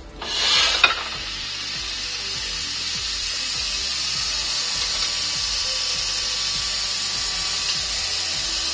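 Wood lathe running steadily after a brief scraping clatter in the first second, as the metal tailstock is slid back along the lathe bed.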